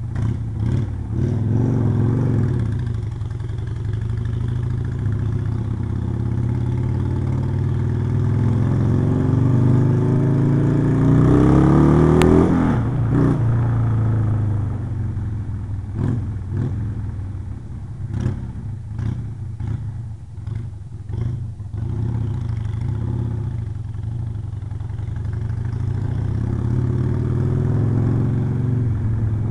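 Harley-Davidson Sportster 883's air-cooled V-twin engine running under way. The revs climb steadily for several seconds, drop sharply about halfway through, and a run of knocks and clatter follows. The revs rise again near the end before easing off.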